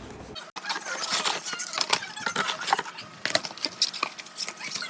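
Keys and small metal lock hardware jangling and clinking as they are handled, a rapid irregular run of light metallic clicks.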